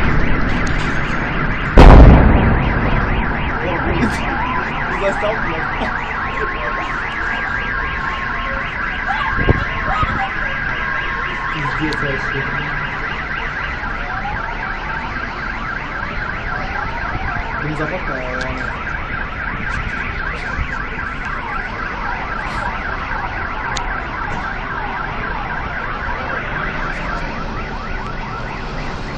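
A propane tank explosion: one very loud blast about two seconds in, with a long fading rumble, and a smaller bang a few seconds later. Many car alarms set off by the blast wail and beep together in overlapping patterns throughout.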